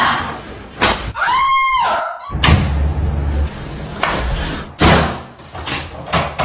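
Several sharp slaps and thuds from a chiropractic adjustment, hands and the treatment table striking during the thrusts. A brief high squeal rises and falls a little after the first one.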